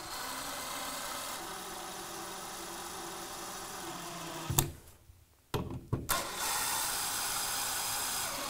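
DeWalt 20V XR cordless drill driving screws through a plastic ceiling supply register: a steady run of about four and a half seconds that stops with a click, then, after a short pause and a couple of clicks, a second run of about two and a half seconds on the next screw.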